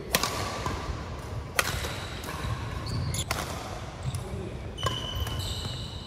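Badminton rally: rackets striking the shuttlecock four times, about every one and a half seconds, with short high squeaks of shoes on the court floor between the hits.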